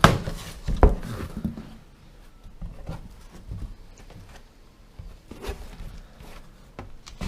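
Handling noise as new motorcycle tires are unpacked: two sharp knocks about a second apart at the start, then lighter rustling, scraping and scattered taps.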